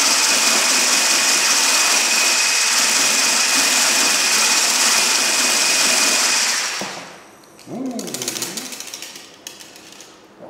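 Electric kitchen appliance motor running loudly at high speed with a steady whine, switched off about seven seconds in. A brief voice sound follows.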